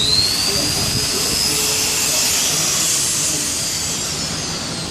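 Pinion gear teeth grinding: a high-pitched whine over a hissy grinding noise. The whine jumps up in pitch at the start, then falls slowly as the drive winds down.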